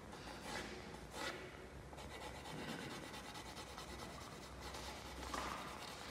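Pencil shading on paper on a drawing board: a series of quiet, irregular scratchy strokes as dark tone is laid in.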